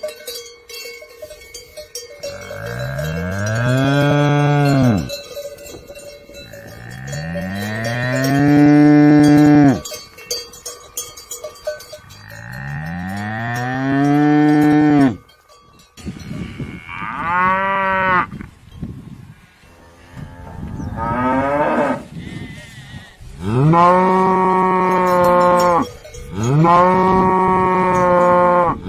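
Cattle mooing repeatedly: about seven moos, most long and drawn out, rising then dropping in pitch, with two shorter ones near the middle.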